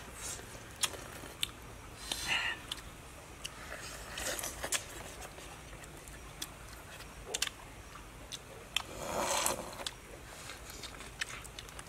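People eating and drinking: short wet clicks and smacks of chewing and biting, with a few slurps from a bowl, the longest about nine seconds in.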